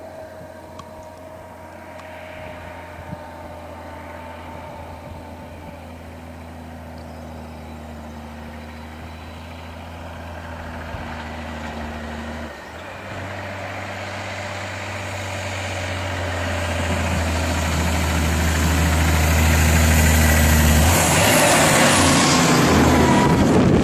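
Diesel engine of a loaded logging truck running steadily as the truck approaches, with a brief dip about halfway through. It grows louder towards the end as the truck passes close by, with tyre and road noise.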